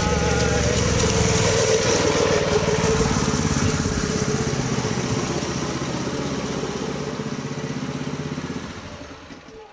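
Small engine of a home-made rail cart running as the cart passes close by on the track, then growing gradually fainter as it moves away.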